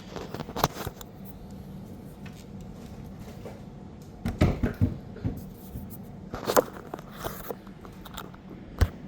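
Scattered knocks, clicks and rattles as a folding chair is handled and fitted onto a plastic quick-release swivel mount, clustered about four seconds in and again a little later, with one sharp knock near the end, over a steady low hum.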